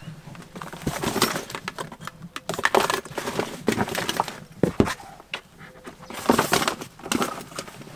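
A black bag rustling and scraping as snorkel fins and a mask are pushed into it by hand, with a sharp knock of gear about two thirds of the way through.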